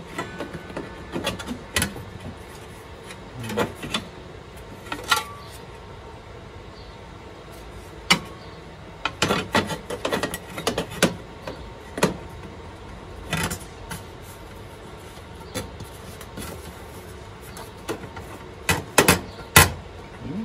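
Irregular clicks, taps and knocks of metal parts being handled and adjusted on a table saw's aluminium table, coming in short clusters.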